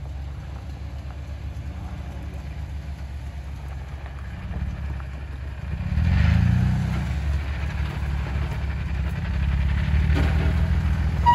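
Jeep Wrangler engine running at low crawling revs as the Jeep works through a deep rut on a dirt off-road track, with a surge of throttle about six seconds in and more throttle again near the end.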